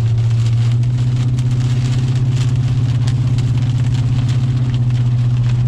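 Steady low drone of a vehicle's engine and road noise, heard from inside the cab while driving.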